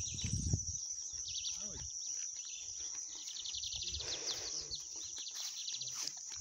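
Rural outdoor ambience: insects buzzing steadily at a high pitch, with birds chirping in quick trills. About four seconds in there is a short rustle.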